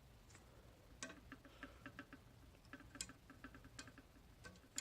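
Faint, quick, light clicking, several small ticks a second, starting about a second in.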